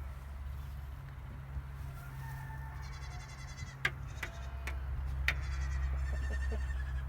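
Livestock bleating in the background, with a few sharp clicks in the middle and a steady low hum underneath.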